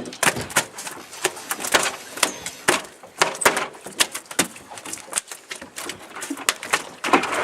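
A freshly landed fish flopping on the boat, its body and tail slapping the deck in a rapid, irregular run of knocks.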